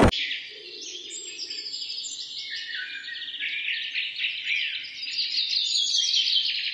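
Train wind noise cuts off abruptly, giving way to a busy run of high, bird-like chirps and twitters over a faint low hum, the end-card sound track of a subscribe animation.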